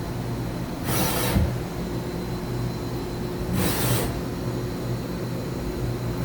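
Mazak HCN 4000-III horizontal machining center's Z-axis traversing back and forth at full rapid speed: a steady hum from the ball-screw drive with a short hissing rush about every 2.7 s, twice here. The ball screw and thrust bearings sound good.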